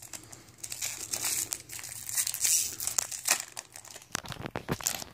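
Foil booster-pack wrapper crinkling and being torn open, handled right at the microphone in a steady, irregular crackle, with a few heavier handling knocks near the end.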